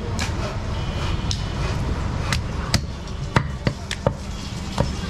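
Butcher's cleaver chopping goat meat on a wooden log chopping block: about eight sharp chops at uneven intervals.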